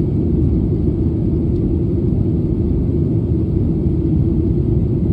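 Cabin noise of a Boeing 737-800 in flight, heard from a window seat: a steady, even low rumble of its CFM56-7B turbofan engines and the air rushing past the fuselage.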